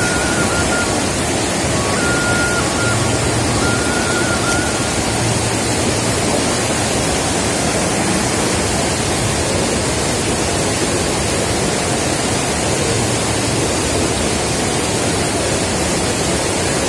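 Steady rushing of a fast-flowing, muddy river running high under a footbridge. A thin, high, whistle-like tone sounds briefly a few times in the first few seconds.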